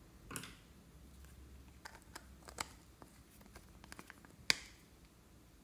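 Light clicks and taps of small plastic containers being handled, with one sharper click about four and a half seconds in.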